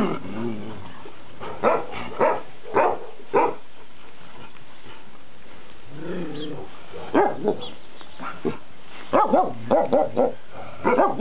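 Several dogs in a kennel run barking at the fence. First come single sharp barks about half a second apart, then a lower, longer call about six seconds in, then a quick run of barks near the end.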